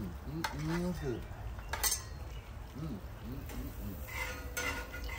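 Metal grill tongs clinking against the grill grate and a metal serving tray as grilled food is lifted off, a few sharp clinks with the loudest about two seconds in.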